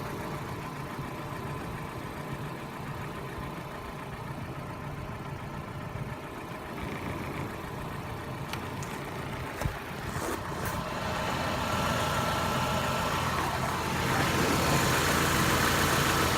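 Opel Astra H engine running at idle with a gear knock. The sound grows louder about ten seconds in and again near the end, with one sharp knock about nine and a half seconds in.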